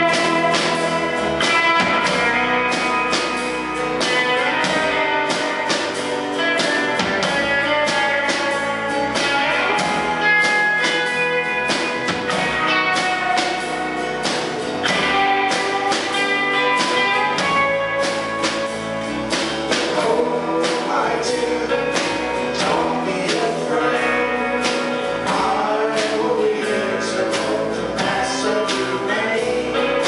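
Live indie band playing a song: strummed acoustic guitar, drums and electric bass, with singing over them.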